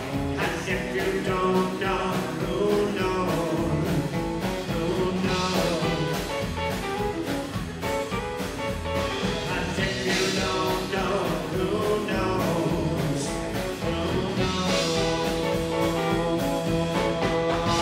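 Live rockabilly band playing: acoustic guitar strummed over a drum kit keeping a steady beat, with singing.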